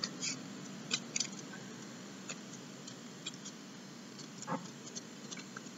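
Faint crinkles and small irregular ticks of a thin paper strip being knotted and pressed between fingers to start an origami lucky star, over a steady low hiss.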